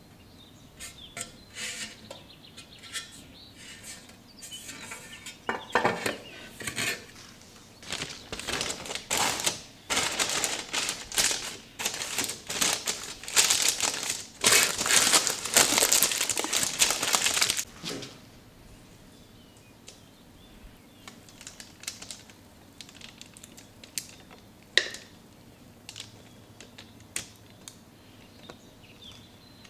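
Baking paper crinkling and rustling as it is pressed and folded into a rectangular metal cake pan; the crinkling is loudest through the middle stretch. Lighter taps before it, and a single sharp click later on.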